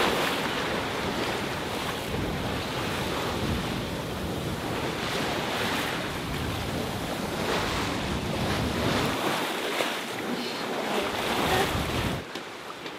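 Sea water rushing and splashing past the hull of an Allures 51.9 sailing yacht under way, a steady wash of noise, with wind buffeting the microphone.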